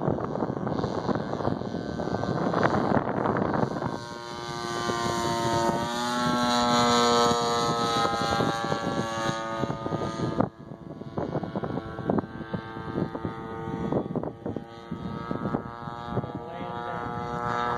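Giant-scale Piper Cub RC plane's NGH 35cc gas engine droning in flight overhead, its pitch sliding as it flies past. Wind buffets the microphone for the first few seconds.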